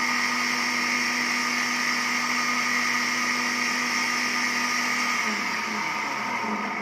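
Electric motor of a 1 hp Russian-made aluminium water pump running dry with a steady hum. About five seconds in it is switched off and winds down with falling pitch. Running dry this way is, by the seller's account, its normal sound.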